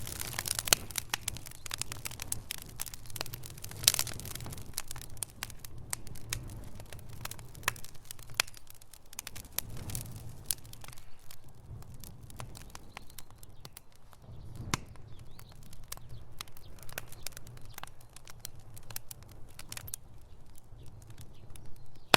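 Wood fire crackling and popping in a fireplace over a low steady rumble of the flames. The crackles come thickest over the first few seconds and thin out after, with a few sharper pops, the loudest about four seconds in.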